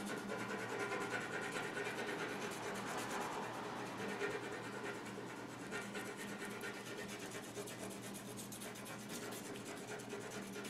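Coloured pencil rubbing and scratching on drawing paper in quick, continuous shading strokes, over a faint steady hum.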